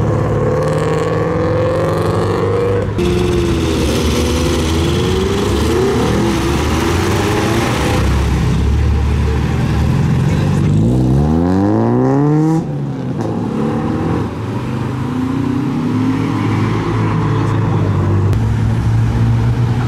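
Car engines and exhausts running as cars pull away one after another. About eleven seconds in, one engine revs up sharply, rising in pitch, then cuts off suddenly.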